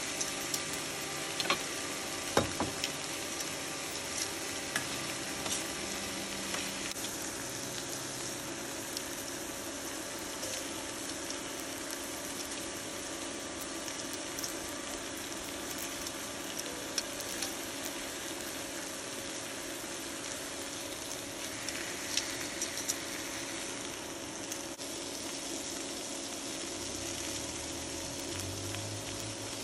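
Slices of marinated Korean BBQ meat sizzling steadily on a hot ridged grill pan, with a few sharp clicks of metal tongs against the pan as the meat is turned.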